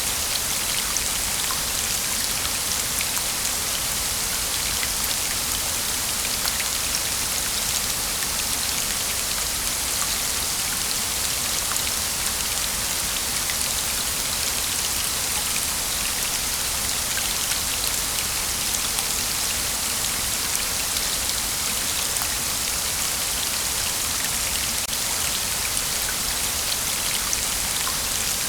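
Waterfall: a steady, even rush of falling water with fine splattering, bright and hissy, with no birdsong.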